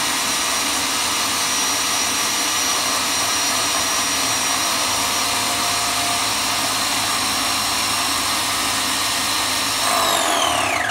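Graco Magnum X5 airless paint sprayer running with a steady motor whine, its pump priming properly and pushing paint out through the prime tube into a bucket. Near the end the motor is shut off and its whine falls away.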